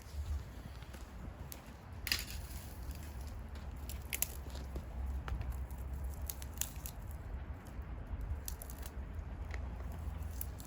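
Wood bonfire crackling, with scattered sharp pops and snaps, the loudest about two seconds in and again about four seconds in, over a steady low rumble.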